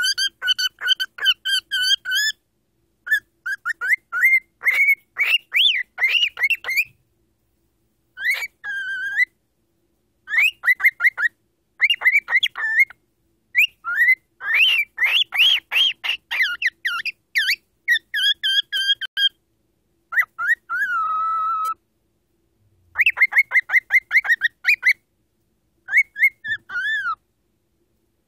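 Pet cockatiel whistling and chirping in bursts of short, rising and falling whistled notes, with brief pauses between phrases.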